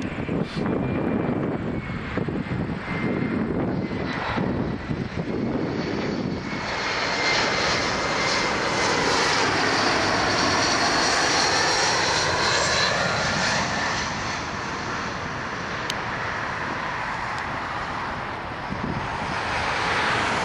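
Jet airliner passing low overhead: engine noise builds to its loudest partway through, with a sweeping, whooshing phasing and a thin whine that slowly falls in pitch, then eases off.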